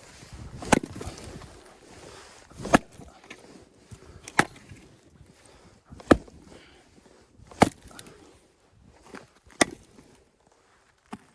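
Axe chopping firewood: six sharp blows about every one and a half to two seconds, with a few lighter knocks between them.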